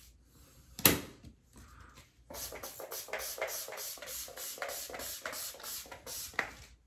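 Hand pump-spray bottle of spray gel squirted rapidly again and again, about three short hissing sprays a second, onto hair. A single sharp click comes about a second in, before the spraying starts.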